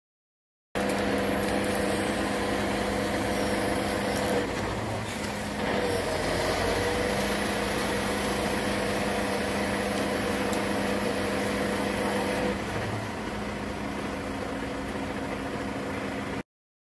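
A heavy truck's engine running steadily with a constant hum, its pitch dipping and recovering briefly about five to six seconds in. It starts abruptly under a second in and cuts off shortly before the end.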